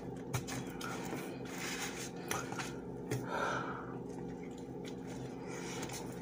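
Eating sounds of a breakfast sandwich on toast being bitten and chewed, with a few small clicks and a soft rustle partway through, over a faint steady hum.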